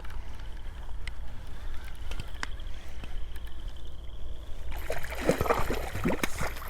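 Hooked channel catfish splashing and thrashing at the water's surface as it is brought in, starting about five seconds in.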